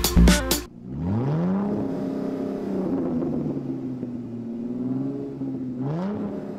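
Music cuts off under a second in. A car engine then revs up, runs at a steady pitch, and revs again briefly near the end.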